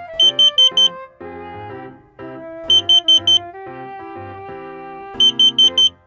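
An electronic carbon monoxide alarm beeping in groups of four quick, high beeps, each group about two and a half seconds after the last, three groups in all. Soft keyboard music plays underneath.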